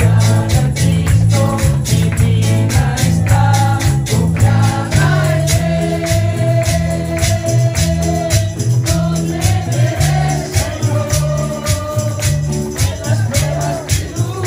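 Live worship music from a church praise band. Several singers on microphones sing over keyboard and drums, with strong low notes and a steady beat.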